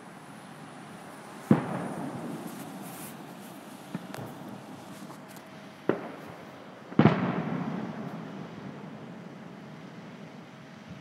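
Aerial firework shells bursting: a loud bang about a second and a half in, a faint pop near four seconds, then two more bangs about a second apart near six and seven seconds, the last the loudest, each trailing off in a rolling echo.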